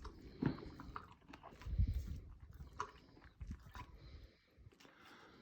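A mare licking and chewing after a yawn, a sign of the horse relaxing as her laminitis pain eases: soft, irregular mouth clicks and smacks, with a low thump about two seconds in.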